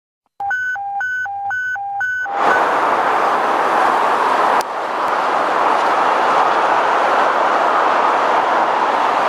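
Steady traffic noise from a busy multi-lane highway, vehicles passing at speed, with a single sharp click about halfway through. It is preceded by about two seconds of clean electronic beeps alternating high and low, which stop as the traffic noise comes in.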